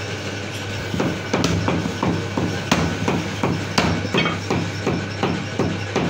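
A heavy butcher's cleaver chops through a rack of goat ribs on a wooden chopping block. The sharp strikes come in a fast, even series of about four a second, starting about a second in.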